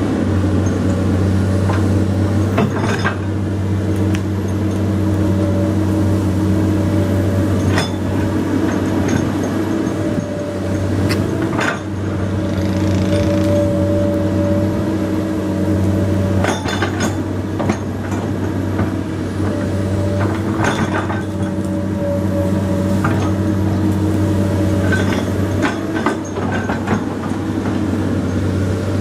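Komatsu PC200 hydraulic excavator's diesel engine running steadily under work, with a higher whine that comes and goes and about a dozen sharp metallic clanks scattered through.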